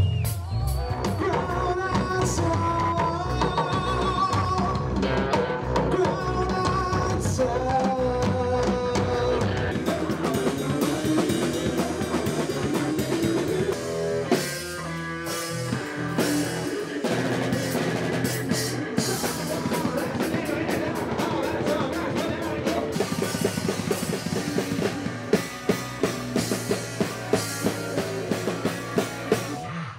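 Rock band playing with electric guitar and drum kit. In the last few seconds, sharp drum hits stand out at about two a second.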